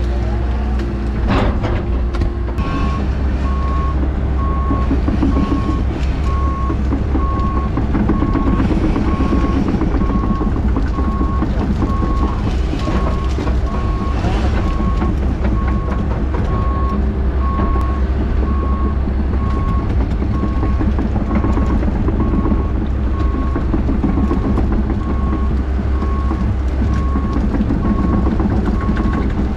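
Excavator's diesel engine running steadily, heard from inside the cab. From about two and a half seconds in, its travel alarm beeps at a steady, even pace while the machine tracks.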